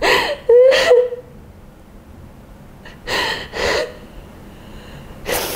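A woman sobbing: a high, wavering cry in the first second, then two loud, shaky breaths about three seconds in and another breath near the end.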